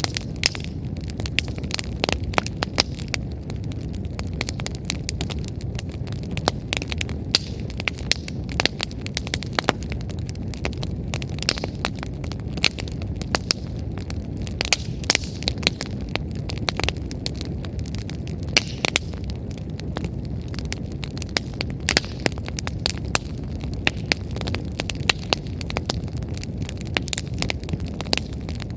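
Wood fire crackling and popping, with many sharp snaps scattered over the low, steady rush of the burning firewood.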